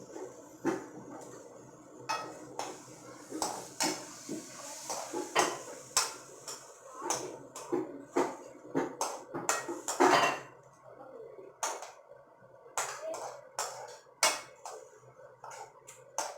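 A metal spoon stirring tomato-onion masala in a heavy-bottomed pan, with irregular clinks and scrapes against the pan.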